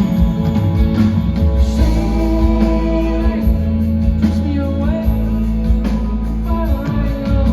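Live band music: a soft-rock ballad with guitars, bass and long held sung notes.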